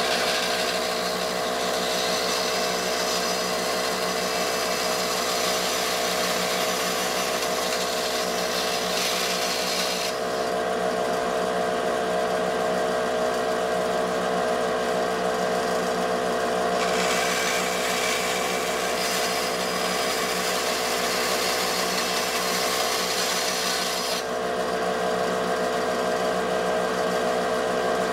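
Bandsaw running steadily with a Starrett bimetal variable-pitch blade, cross-cutting small pieces of brass. A hissing cut sounds for roughly the first third and again for several seconds after the middle, with only the saw's steady running in between as the next cut is lined up.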